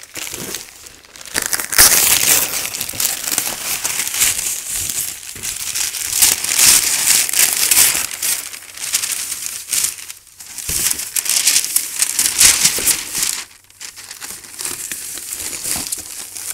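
Paper packing and cardboard crumpling and crinkling as a box is unpacked by hand, in bursts with short pauses.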